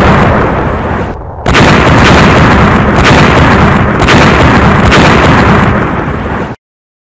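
Explosion sound effect, very loud. A blast dies away, a second blast hits about a second and a half in, and several more booms follow before it fades and cuts off abruptly near the end.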